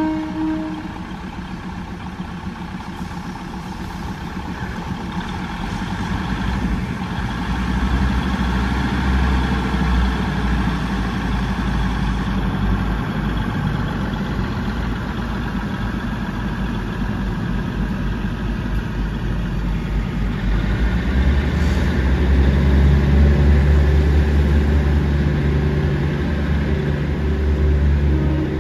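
Diesel railcar engines running under the train, a low steady rumble that builds and is loudest about three-quarters of the way through as the railcar set gets under way.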